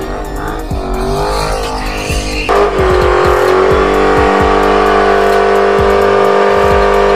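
Dodge muscle car engines during burnouts: first an engine revving up and down, then after a cut about two and a half seconds in, a Dodge Challenger's engine held at steady high revs, louder, as its rear tyres spin in a smoky burnout.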